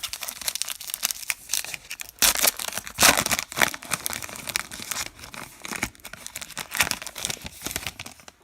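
Foil wrapper of a baseball card pack being torn open and crinkled: a dense run of sharp crackles, loudest about two to three seconds in.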